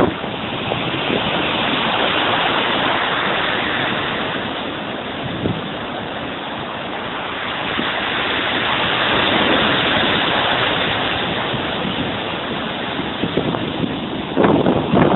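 Sea waves breaking and washing ashore: a continuous rushing surf that slowly swells and eases.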